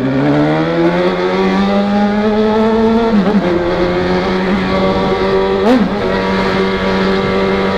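Honda CB1000R motorcycle's inline-four engine accelerating, its pitch climbing for about three seconds, dropping briefly at a gear change, then holding a steady pitch under way.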